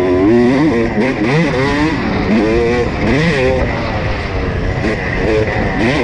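Honda CR250 two-stroke dirt bike engine revving up and dropping back over and over as the rider works the throttle along the trail, with wind rushing over the microphone.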